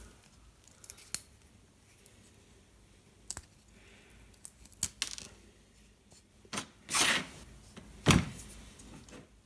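Scattered light clicks and knocks of small metal parts and tools being handled, with a few louder knocks near the end.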